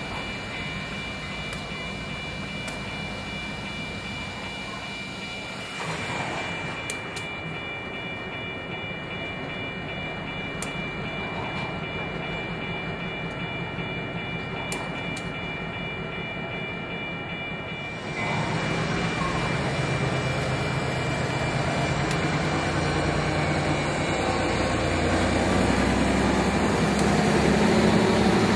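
EMD diesel road-switcher locomotive running, with a steady high-pitched whine over the engine. About 18 seconds in it becomes louder and rougher and keeps building.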